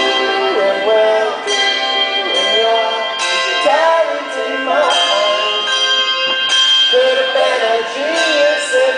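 Handbells ringing chords of a song, fresh ones struck about every one and a half to two seconds and left to ring, with a man's voice singing the melody over them.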